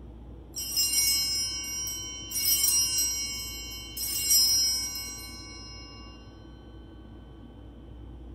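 Altar bells rung three times, about a second and a half apart, each ring high and jangling and the last dying away a couple of seconds later. They mark the elevation of the consecrated host at the consecration of the Mass.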